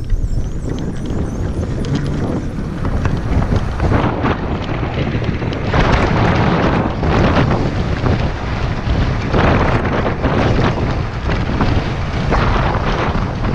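Wind buffeting the microphone while an ONYX RCR electric moped is ridden, a loud, low rushing that swells in gusts several times.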